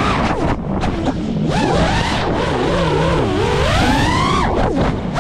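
FPV racing quadcopter's electric motors whining, the pitch sweeping up and down with the throttle, dropping out briefly just after the start and again near the end, with air rushing past.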